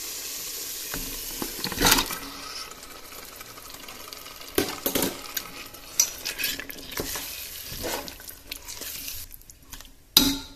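Onion-tomato masala sizzling in a pressure cooker. About two seconds in there is a loud hit as raw chicken pieces are added, and the sizzle dies down. After that a perforated steel spoon scrapes and clinks against the pot as the chicken is turned in the masala, with a sharp clink near the end.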